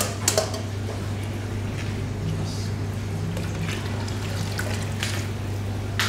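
Steady low hum of a kitchen fan, with liquid trickling and sloshing and a couple of light knocks near the start.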